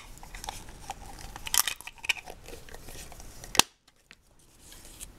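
Small plastic clicks and handling noise as the Lego ornament case is snapped closed around the built cat figure, with one sharp, loud click about three and a half seconds in.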